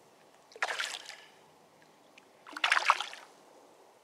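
Two short splashes at the surface beside the kayak, one just after half a second in and one at about two and a half seconds: a hooked fish thrashing on the line while it still has energy.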